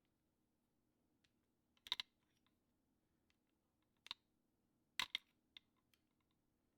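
Sharp clicks and light metallic ticks of a small tool working a part inside a Smith & Wesson M&P Shield pistol during takedown: a double click about two seconds in, a single click near four seconds, another double around five seconds, then a few faint ticks.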